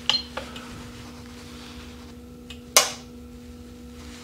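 An RCD socket tripping during a timed RCD test: one sharp snap of the contacts opening about three seconds in, with a light click from the tester's test button at the start and a faint steady hum throughout.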